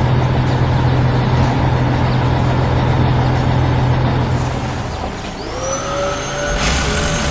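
Heavy vehicle engine sound effect running with a steady low hum, which drops away about five seconds in. A whine then glides up and holds steady, and a hiss joins near the end.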